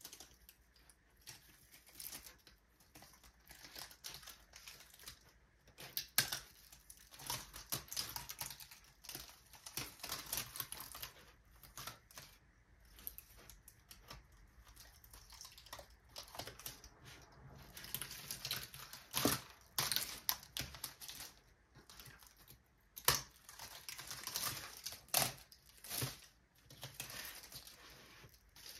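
Excess craft vinyl being peeled off a cutting mat and weeded, crackling and crinkling in irregular bursts with small ticks and taps.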